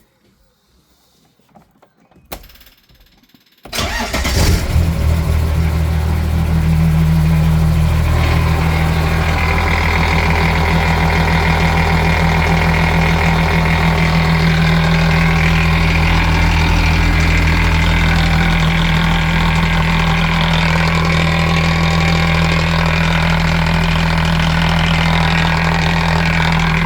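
MerCruiser boat engine with a Bravo Two sterndrive being started: a click, a brief crank, then it catches a few seconds in and settles into a steady idle.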